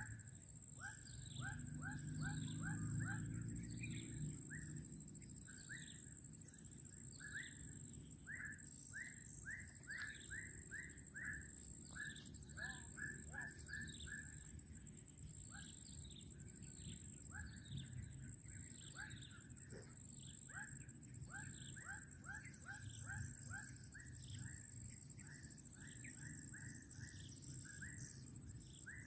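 Outdoor natural ambience: birds calling in a quick, continuous run of short, slightly falling notes, several a second, over a steady high-pitched drone.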